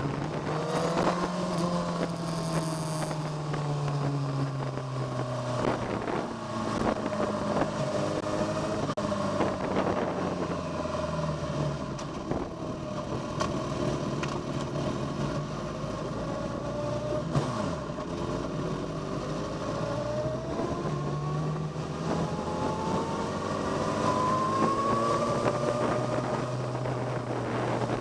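Onboard sound of a vehicle's engine lapping a race circuit at speed, its revs climbing and falling as it accelerates, brakes and shifts, with wind buffeting the microphone. The revs rise steadily in a long pull about three quarters of the way through.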